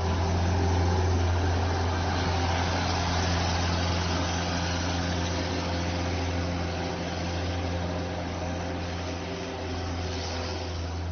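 Skid steer loader engine running steadily with a low, even drone.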